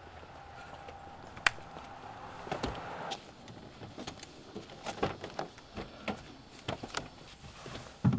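Quiet, irregular clicks, taps and rustles of someone getting into a car, with a louder low thump just before the end.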